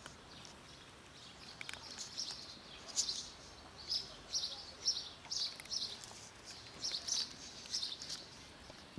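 Cats crunching dry kibble, a quick run of short crisp crunches about two to three a second.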